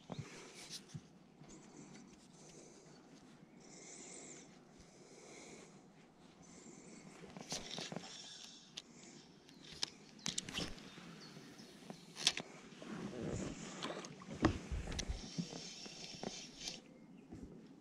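Spinning reel being wound in short spells of about a second, with pauses in between, a whirring hiss each time the handle turns. Several sharp knocks from handling the rod and the inflatable boat stand out in the second half.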